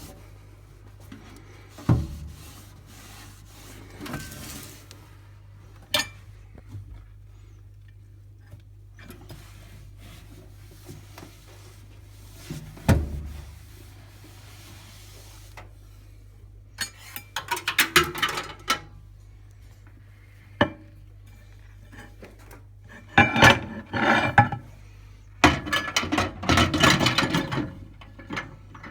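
Wiping and rubbing inside a microwave, in several bursts that grow busier towards the end, with a few single knocks and a low steady hum underneath.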